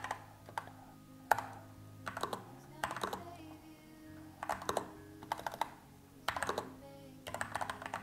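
Typing on the Accto B705 retro typewriter-style mechanical keyboard: short runs of clicky keystrokes with brief pauses between them. Soft background music plays underneath.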